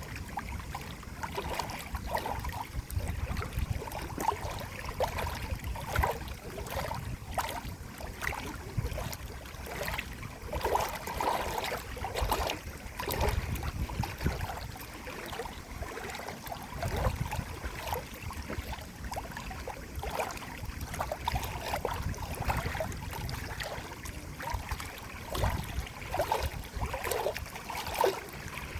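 Flowing water: a steady wash with many small, irregular plops and gurgles.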